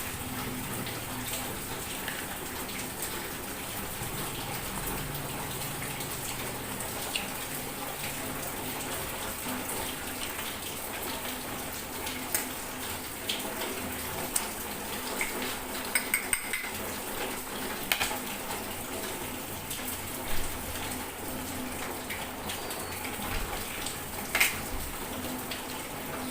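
A steady background hiss with a scattered handful of light clicks and clinks, the sounds of eating street food with a utensil from a plate or cup; a quick cluster of clicks comes just past the middle.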